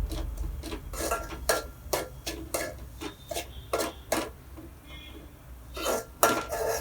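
A metal utensil stirring in a cooking pan, with irregular clinks and scrapes against the pan about twice a second and a short lull a little past the middle.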